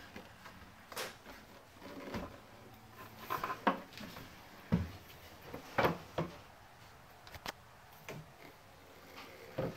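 Irregular light knocks and clicks from hands handling a small painted wooden table and the handheld camera held close to it.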